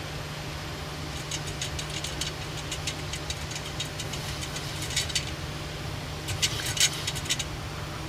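Steady low hum of a Boeing 737 flight deck in flight, with a run of short, sharp clicks and rattles from about a second in, bunched around the middle and thickest near the end.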